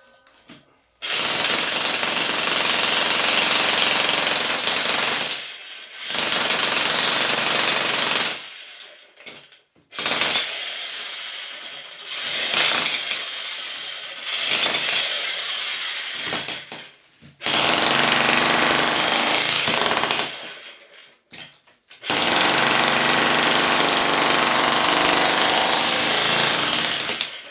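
Sky 65 mm electric jackhammer chiselling into a concrete slab, breaking it up, run in five loud bursts of a few seconds each with short pauses between; the middle burst is weaker and uneven.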